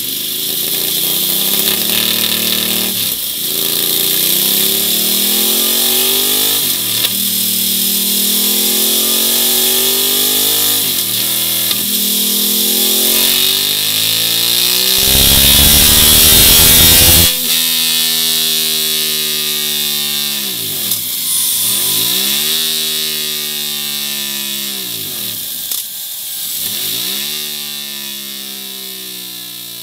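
Ducati Monster 1200's L-twin engine revving through a MIVV MK3 slip-on exhaust: a few throttle blips, then a long climb in revs about halfway through that cuts off sharply. After that comes a quick series of blips that rise and fall back, fading near the end.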